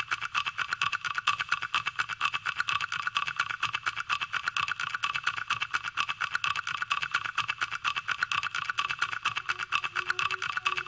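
A fast, even mechanical clatter, about ten beats a second, over a steady high whine, with a faint low hum joining near the end.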